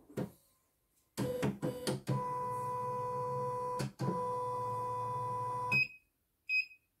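CNY E900 embroidery machine's embroidery unit driving the hoop: a few ticks, then the carriage motors whine steadily for about two seconds, stop briefly, and run again for nearly two seconds as the hoop travels out and back. Two short high beeps from the touch panel follow near the end.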